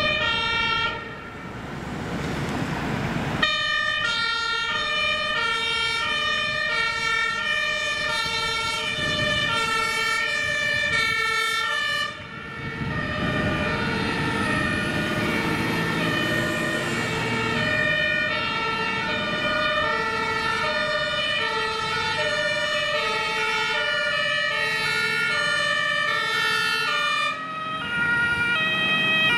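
German two-tone emergency sirens on responding fire engines, high and low notes alternating, with more than one siren sounding at once and out of step. A diesel truck engine is heard passing midway, and a steady high tone runs under the sirens.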